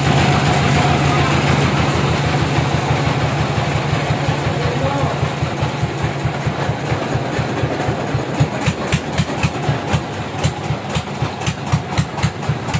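Band sawmill machinery running steadily with a low hum. Over the second half a regular thumping of about two beats a second builds up and grows more distinct.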